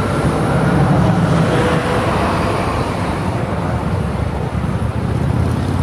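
Lake passenger boat's engine running with a steady low rumble as the boat pulls away, under a loud, even rushing noise.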